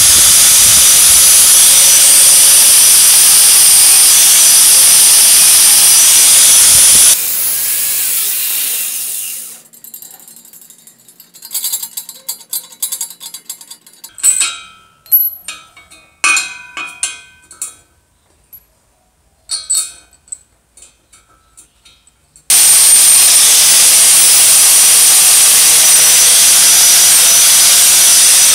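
Angle grinder with a wire cup brush running against rusty steel drill parts, a steady loud hiss that cuts off about seven seconds in and winds down. There follow light metallic clicks and taps as the parts are handled, and the grinder starts up again near the end on a bevel gear.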